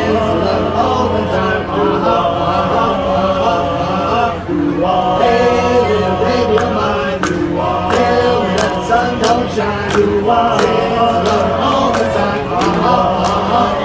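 Barbershop chorus singing a cappella in close harmony: many voices holding and moving through sustained chords, with a short break about four and a half seconds in. The voices are amplified through stage microphones and PA speakers.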